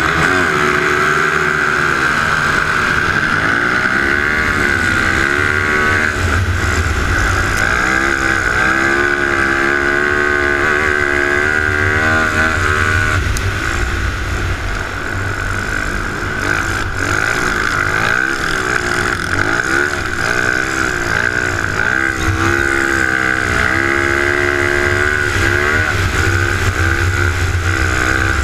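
Race ATV engine heard from the rider's helmet, revving hard and shifting through the gears, its pitch repeatedly climbing and falling between straights and corners. It dips briefly about halfway through.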